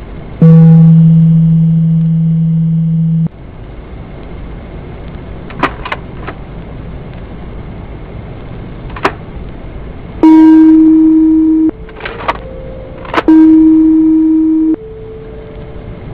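A low, steady buzzing tone holds for about three seconds, then cuts off. After a few sharp clicks, three higher buzzing tones of about a second and a half each sound at even three-second spacing. Each starts and stops abruptly over a steady hiss.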